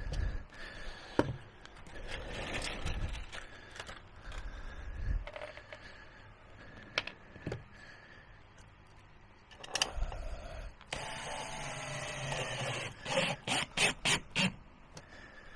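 Screws being driven into the wooden table with a power drill: scattered knocks and handling of wood, then the drill motor running for about two seconds near the end, followed by several short trigger bursts.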